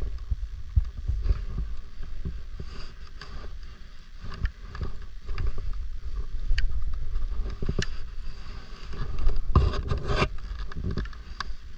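Wind rumbling on the microphone, with scattered scrapes and clicks, and a louder burst of rubbing noise near the end.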